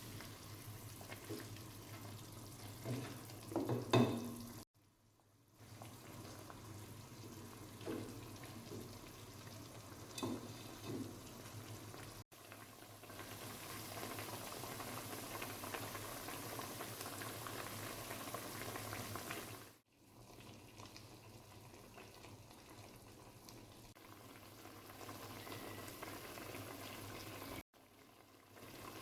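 Chicken pulao cooking in a pot on the stove: a steady sizzling, bubbling hiss, with a few stirring knocks and scrapes in the first ten seconds or so. The sound drops out briefly four times.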